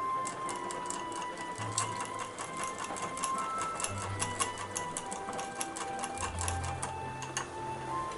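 Metal wire whisk rattling quickly against a small ceramic bowl while mixing cornstarch with water into a slurry, several clicks a second, stopping near the end. Background music with held notes plays throughout.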